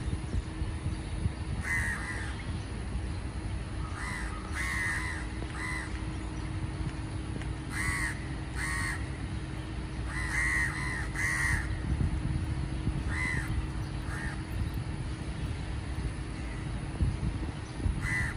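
Indian house crows (Corvus splendens) cawing: short harsh caws given singly and in quick runs of two or three, every second or few, with a lull near the end. A steady low background rumble runs underneath.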